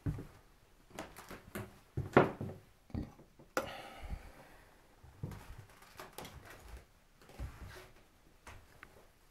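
Irregular knocks and thuds in a small room. The loudest comes about two seconds in, and a louder knock about three and a half seconds in trails off over about half a second.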